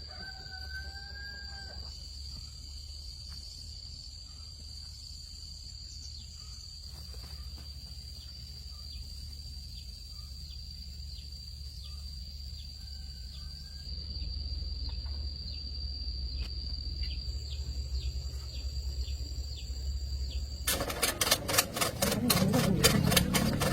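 Outdoor farmyard sounds: a steady high-pitched insect drone, with a cock crowing briefly at the start and faintly again near the middle. A low rumble grows louder partway through, and a rapid, loud clattering takes over for the last three seconds.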